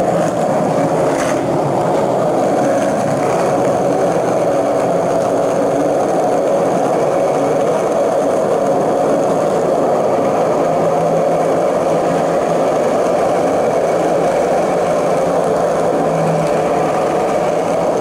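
Skateboard on new Synopsis bearings rolling down the smooth concrete of a parking garage: a steady, unbroken wheel rumble.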